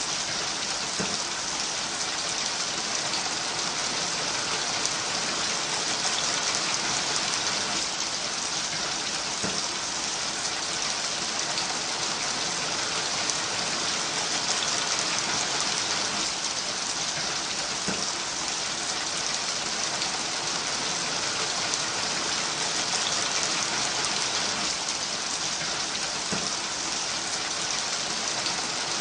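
Steady rain falling, an even hiss of drops on a surface with occasional individual drop taps.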